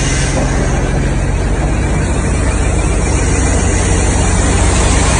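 Heavy engine idling steadily: a low, even hum with a hiss over it.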